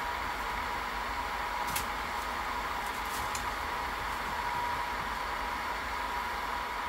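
Steady whirring of a small fan motor with a constant faint hum, and a couple of light clicks near the middle.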